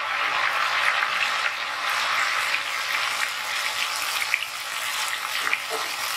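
Ghevar batter deep-frying in hot oil, sizzling and bubbling vigorously: a steady hiss with many small crackles and pops.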